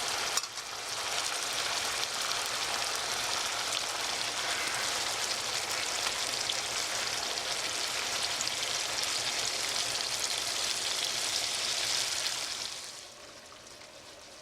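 Chicken pieces in a yogurt and tomato-paste sauce sizzling in a hot pan: a steady hiss that drops to a much quieter level about thirteen seconds in.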